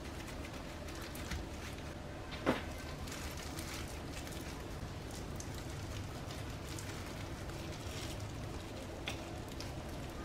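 Plastic-gloved hands pressing rice onto a nori sheet on a bamboo mat and laying strips of egg and fish cake on it: soft crackling and rustling, with a few small clicks and one sharper tick about two and a half seconds in.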